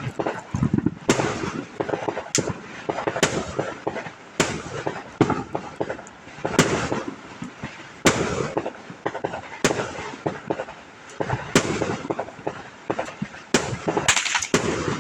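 Fireworks going off: a run of sharp bangs at uneven spacing, roughly one a second, with crackling and hissing between them.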